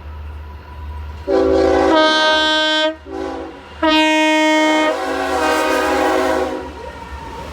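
Multi-chime air horn sounding a chord in three blasts: a long one, a short one, then another long one that trails off, over a steady low rumble.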